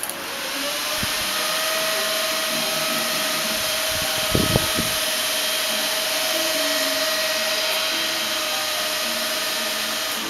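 Small electric fans on an inflatable robotic sculpture running, a steady whirring rush of air with a steady whine, as they blow up its plastic tubes. A few low thumps come about four and a half seconds in.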